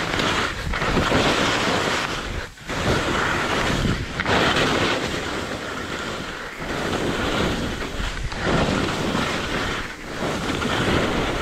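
Rushing wind on the microphone mixed with skis scraping over firm, smooth couloir snow during a fast descent, the rush dipping briefly every couple of seconds.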